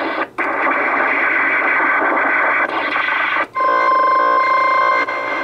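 CB radio speaker on sideband giving out loud hissing static, cutting out briefly twice. About three and a half seconds in it gives way to a steady, multi-pitched electronic whine: the unidentified interference that was moving across CB channels 15 to 20.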